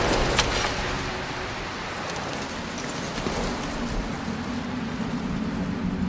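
Steady hiss of rain falling on wet paving, with a few sharp clicks at the very start. A low steady hum comes in toward the end.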